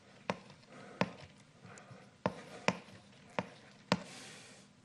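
Chalk writing on a blackboard: about six sharp taps as the chalk strikes the board at irregular intervals, with faint scratching between them and a longer scrape near the end.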